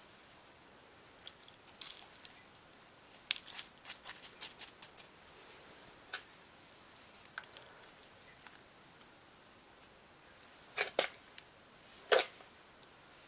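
A thin clear plastic seedling cup crinkling and clicking as it is handled while potting soil is added and pressed in around a petunia seedling. Irregular short crackles, a busy cluster a few seconds in and the loudest crinkles near the end.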